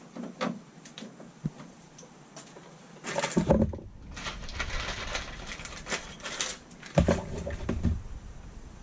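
Handling noise from hands working electrical wires and connectors: scattered small clicks, then about three seconds in a stretch of rustling with knocks and bumps, the loudest near the start of it and again near the end.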